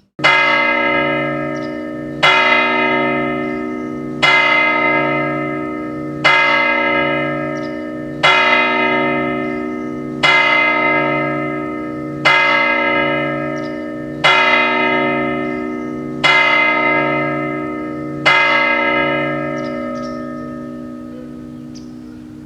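A tower clock's bell striking ten times, one stroke every two seconds, each blow ringing on with its overtones as it fades and the last ringing out: the clock striking ten o'clock.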